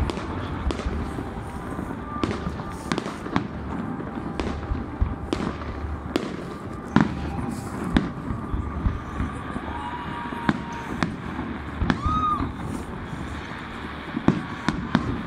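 Fireworks going off: a continuous run of irregular sharp bangs and crackles, with a few louder reports standing out.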